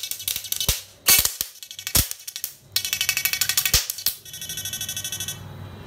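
Homemade IGBT electric fishing inverter driving current through its electrode in a bucket of water: a harsh, pulsing electrical buzz broken by several sharp cracks, settling into a steadier buzz near the end.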